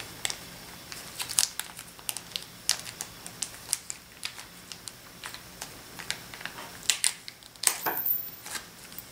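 Irregular light clicks and taps of small hardware being handled, such as a bolt and washers, with a few louder knocks near the end.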